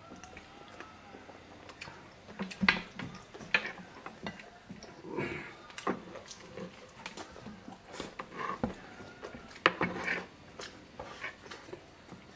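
Close-up eating sounds: chewing, lip smacks and wet mouth clicks as rabbit adobo is bitten and eaten by hand, with a few sharper smacks scattered at irregular moments.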